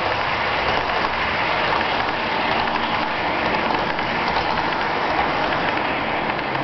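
HO-scale model freight cars rolling along the track, a steady rattling noise of small metal wheels on rail that keeps going after the last car has passed.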